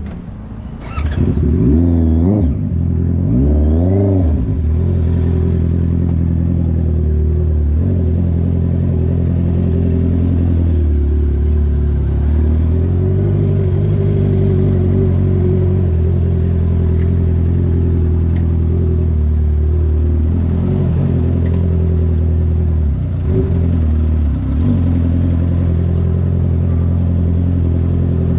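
Honda CB650R's 649 cc inline-four through a loud exhaust: a brief drop off the throttle at the start, then the pitch rises in a couple of quick pulls through the gears, settling into a steady drone at constant throttle with one short lift-off about three quarters of the way through.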